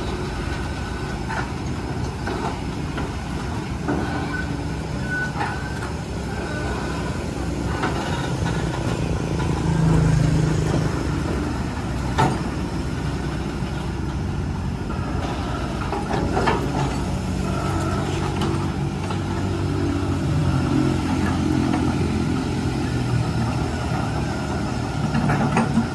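Kobelco excavator's diesel engine running, growing louder about ten seconds in and again in the second half, with one sharp knock about twelve seconds in.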